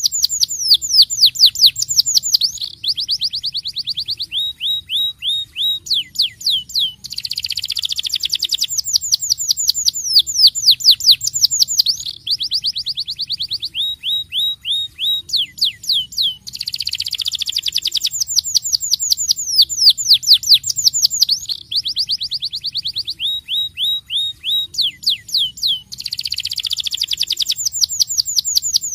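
Domestic canary singing loudly and without a break: runs of rapid downward-sweeping whistled notes alternating with dense rolling trills, the same sequence of phrases coming round again about every nine and a half seconds.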